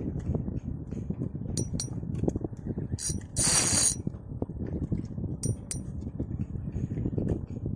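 Fishing gear on a small boat at sea: a steady low rush of water and wind, with a few sharp metallic clinks. A brief loud hissing buzz comes about three and a half seconds in.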